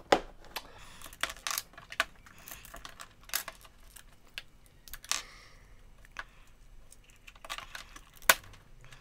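LEGO Technic plastic parts clicking and tapping as they are handled, pulled apart and set down on a tabletop: irregular sharp clicks, the loudest a single click near the end.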